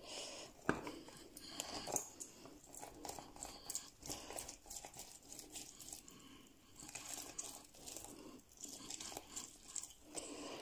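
A cut lemon being juiced by hand: irregular scraping and small clicks as the halves are pressed and worked, with one sharper click under a second in.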